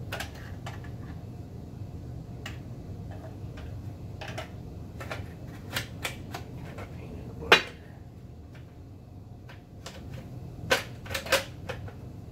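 Irregular clicks and knocks from a small-block Chevy HEI distributor being handled and turned in the hands, with one sharper knock about halfway through and a quick run of clicks near the end, over a steady low hum.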